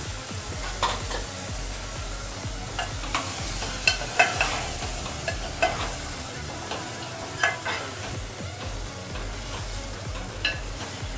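Metal spoon stirring chicken pieces into a masala frying in oil in a pot: a steady sizzle, with the spoon clinking irregularly against the pot.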